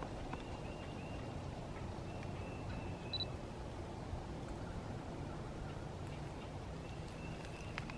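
Digital SLR camera taking photos: a short high beep a little after three seconds and a few sharp shutter clicks, one near the end, over steady low background noise.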